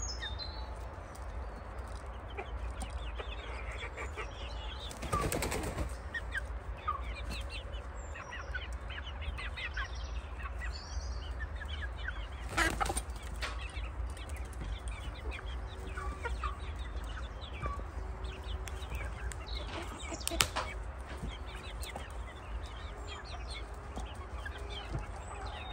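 A flock of young Shamo chickens chirping and clucking with many short calls, broken three times by a brief flurry of wing flapping.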